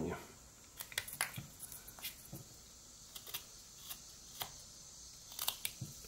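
Rough Rider pocket knife slicing shavings off a block of eastern white pine: a series of short, crisp cuts at irregular intervals, about ten in all, as a whittled figure is trimmed down.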